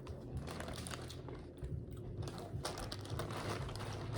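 Crab being eaten: irregular sharp cracks and clicks of shell being broken and chewed, with plastic crinkling, over a low steady hum.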